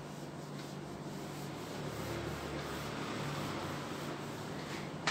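Cloth wiping marker writing off a whiteboard: a steady rubbing swish, strongest in the middle.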